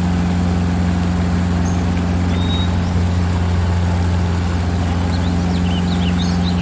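Helicopter sound effect: a steady, loud low mechanical drone of engine and rotor, with a few faint high chirps about five to six seconds in.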